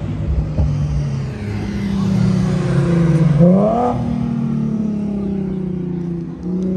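A car engine revving hard as the car accelerates away. The pitch climbs sharply about three and a half seconds in, holds, then dips and climbs again at the very end, like gear changes under full throttle.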